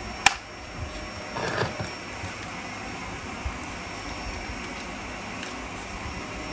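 Vacuum cleaner running steadily, with a faint steady high whine. A light click comes just after the start, and a brief rustle about a second and a half in.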